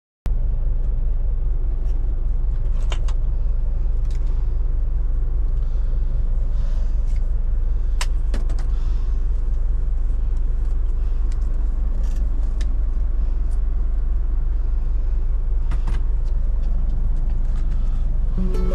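Heavy truck's diesel engine running with a steady low rumble, with scattered light clicks and rattles.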